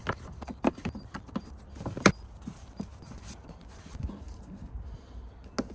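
Plastic engine-bay cover and trim being pushed and snapped back into place: a run of sharp plastic clicks and knocks, the loudest about two seconds in, then quieter handling and one more click near the end.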